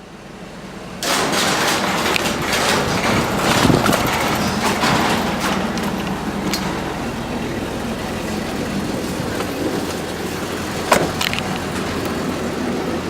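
Car road and engine noise, rising about a second in and then holding steady, with a few sharp clicks, the loudest near the end.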